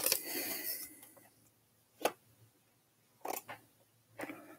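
Foil booster-pack wrapper crinkling briefly as the trading cards are slid out. Then a sharp click about two seconds in and a few lighter taps of the card stack being handled.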